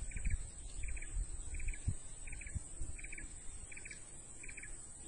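Rhythmic chirping from a small animal: a short three-pulse chirp repeated evenly about every three-quarters of a second. Under it run a steady high-pitched hiss and a low wind rumble.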